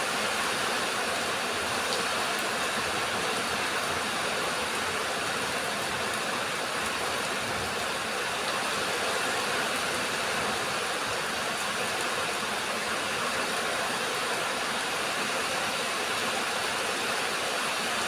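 Steady rain falling, an even continuous hiss of drops with a few faint ticks.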